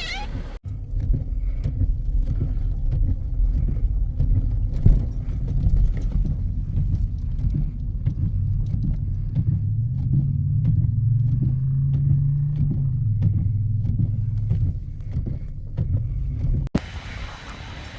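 Motor vehicle running with a heavy low rumble, its engine note wavering up and down in the middle; the sound cuts off abruptly near the end.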